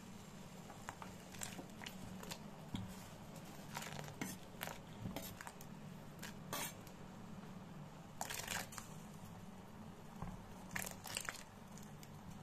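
A chef's knife scraping diced potatoes across a bamboo cutting board, in a string of short scrapes and clicks with two longer scrapes in the second half, as the cubes drop into a pot of boiling water. A steady low hum runs underneath.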